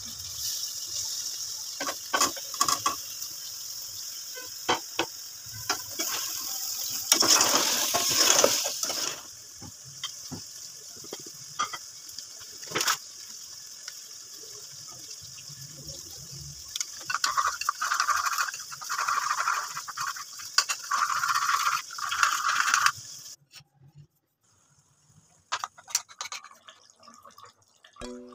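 Kitchen cooking sounds at a steel pot on a gas stove: a steady sizzling hiss with scattered clinks and knocks of utensils, and a louder rush of water poured in about seven seconds in. The sound drops to almost nothing about five seconds before the end.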